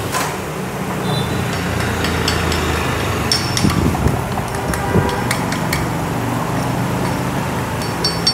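Metal tools and parts clinking every second or so, over a steady low hum.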